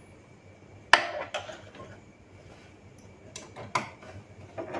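Hands working inside an open inkjet printer while fitting a screw: one sharp click about a second in, then scattered lighter clicks and taps of the screwdriver, screw and plastic printer parts.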